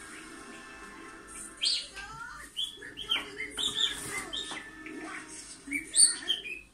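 Budgerigar warbling: a run of rapid chirps, clicks and short whistled glides starting about one and a half seconds in, loudest near the end, over a steady low background hum.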